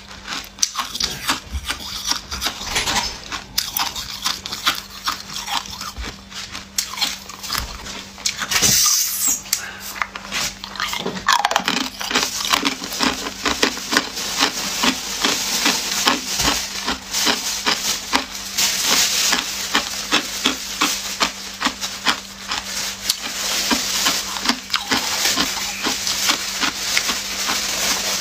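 Hard ice cubes being crunched and chewed close to the microphone: a dense, continuous run of sharp crackling crunches that grows louder and busier about a third of the way in.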